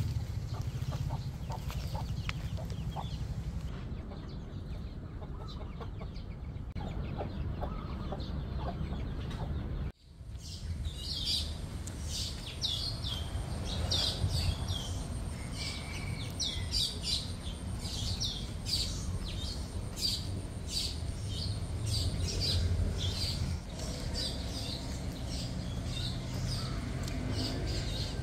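Chickens clucking faintly over a low rumble, then, after a brief cut, small birds chirping in many short high calls, repeated over and over.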